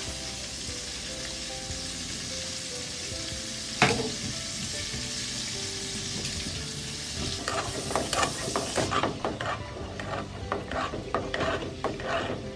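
A metal spoon stirring a thick ketchup-and-sugar sauce in a metal pot, over a steady hiss. There is one sharp knock of spoon on pot about four seconds in. In the second half come many quick scrapes and clinks as the stirring picks up.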